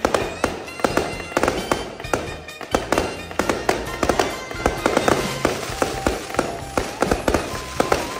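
Fireworks cake firing aerial shells that burst overhead: sharp, irregular bangs, about two to three a second.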